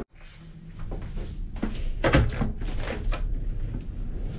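A ship's door being opened and passed through: a run of sharp clicks and knocks from its handle and frame, loudest about two seconds in.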